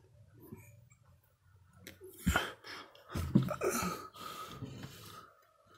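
Aerosol can of gas leak-detector spray hissing in two bursts: a short one about two seconds in and a longer one about a second later. The joints of an LPG regulator are being sprayed to check for leaks.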